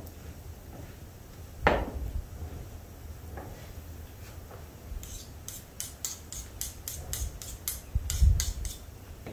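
Wooden pestle mashing boiled carrots in an earthenware bowl, with dull knocks and one louder knock about two seconds in. From about five seconds in, a quick run of sharp scrapes, some three or four a second, as a knife scrapes the mashed carrot off the pestle.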